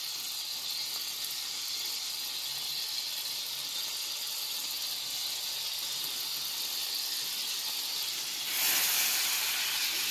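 Margarine sizzling in a hot frying pan, a steady hiss. About eight and a half seconds in, the sizzle gets clearly louder and fuller.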